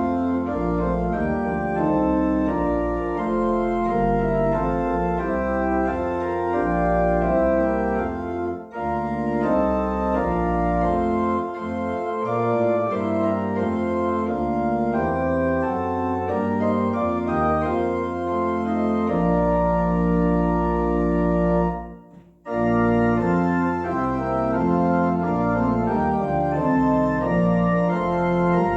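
Organ music: sustained full chords over a deep pedal bass, with a brief break between phrases about 9 seconds in and a longer pause about 22 seconds in.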